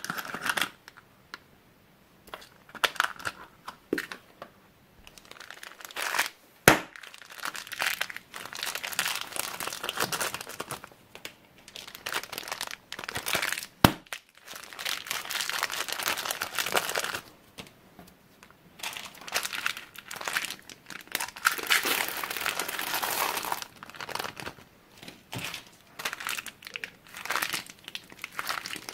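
Thin plastic packaging crinkling and rustling in irregular bursts as small bags and a clear plastic cup are handled, opened and emptied. Two sharp snaps stand out, about a quarter of the way in and about halfway through.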